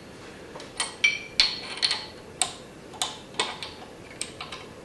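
Ratchet wrench clicking in short, irregular ticks, about two a second, as a mounting bolt on a small mill's head is tightened back down after shimming.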